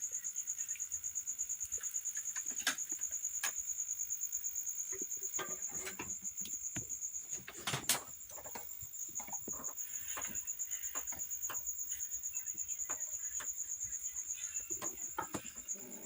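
A cricket chirping in a steady, rapid high-pitched trill, with scattered sharp clicks and one louder knock about eight seconds in.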